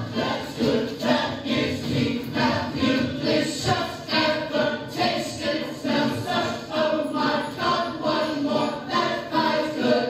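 Musical-theatre ensemble of several voices singing together with accompaniment in a lively stage number.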